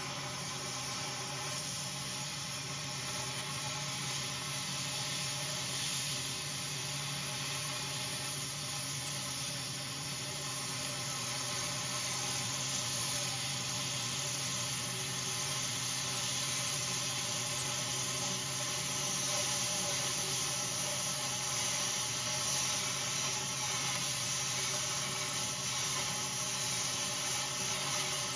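Oxy-fuel cutting torch hissing steadily as it cuts and blows away the weld holding a steel roller's end plate.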